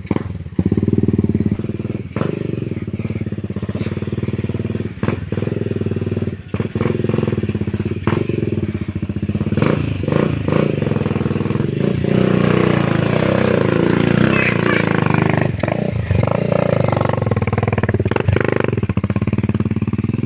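Motorcycle engine running steadily while riding over rough off-road ground, with frequent knocks and rattles as it goes over bumps. About twelve seconds in, the engine works harder and the sound grows louder.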